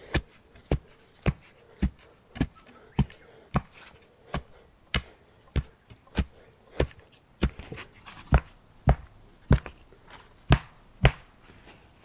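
A wooden stick rammed down again and again beside an upright post, tamping soil and stones firm around its base: a steady run of sharp thuds, a little under two a second.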